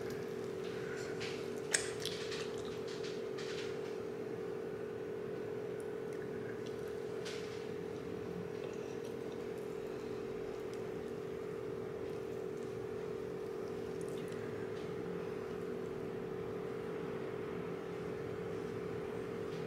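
Cheese-topped crusty bread being torn apart by hand: soft squishing with a few crackles of the crust, one sharp crack about two seconds in. A steady low hum runs underneath.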